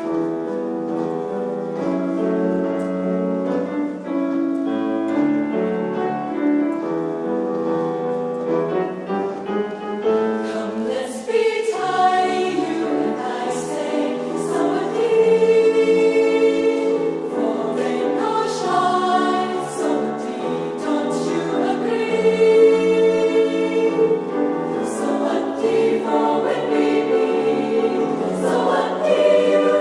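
Choir singing held chords in harmony, growing fuller and louder about halfway through, with short crisp hissing accents in the second half.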